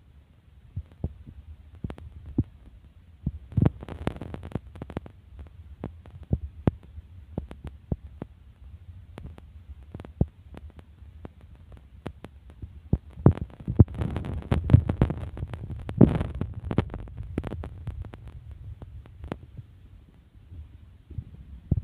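Handling and wind noise on a phone microphone: a low rumble with irregular soft knocks and clicks, busiest a little past the middle.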